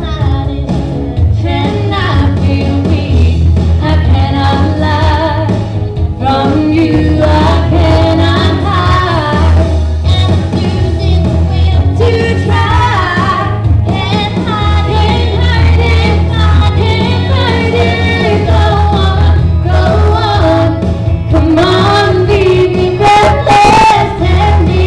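Two girls singing a pop song as a duet over a loud backing track with a heavy, steady bass.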